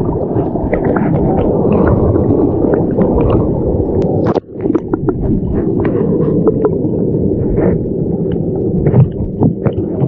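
Wind buffeting the camera microphone: a loud, low rumble with scattered crackles, briefly dropping out about four and a half seconds in.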